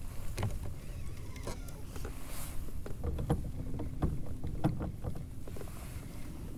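Scattered knocks and bumps on a kayak as the angler handles rod and reel while fighting a hooked catfish, over a low rumble of wind and water.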